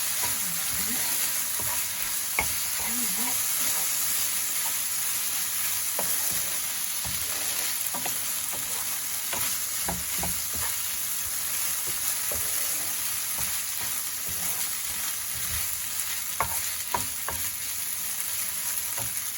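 Udon noodles with onion and soy sauce sizzling in a frying pan, a steady hiss, with scattered clicks of a utensil against the pan.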